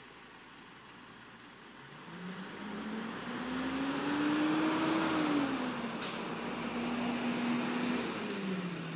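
Garbage truck's engine growing louder as the truck approaches, its pitch rising for a few seconds and then easing back to a steady note. There is one brief sharp sound about six seconds in.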